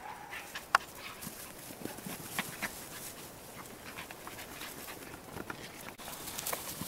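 Cairn terrier puppies scampering on grass close by, with soft panting and scattered light ticks and rustles.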